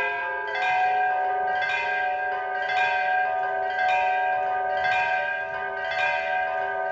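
Live bell-like music from a synthesizer: layered, sustained ringing tones, with a new struck, bell-like attack about once a second.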